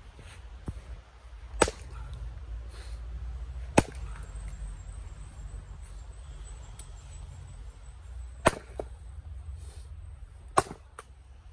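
Axe striking firewood rounds on a chopping block as they are split: four sharp cracks in two pairs, each pair about two seconds apart, with a few lighter knocks in between.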